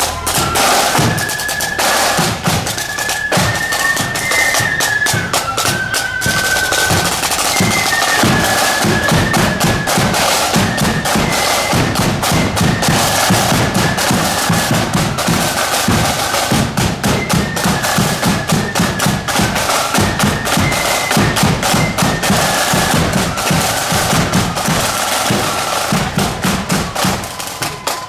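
Marching band playing on the move: a high, wandering melody over snare drum rolls and a steady bass drum beat.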